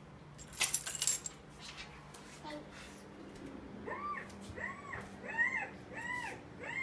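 A brief rattling clatter about half a second in, then a run of short, high whimpering calls from about four seconds in, each rising and falling in pitch, repeated roughly every half second.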